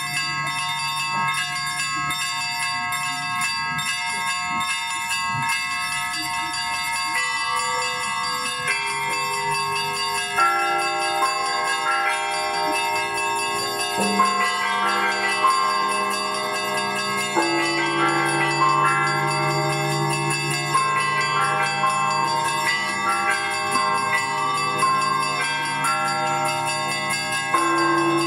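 Russian Orthodox church bells rung together in a continuous peal: small bells struck rapidly over the sustained ringing of larger bells. Deeper bells come in from about ten seconds in.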